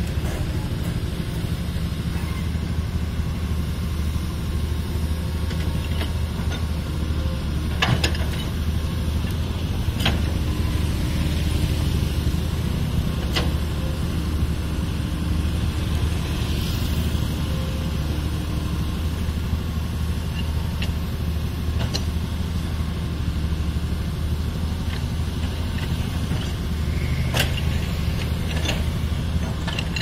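Long-reach excavator's diesel engine running steadily as it works, with a few sharp clanks now and then.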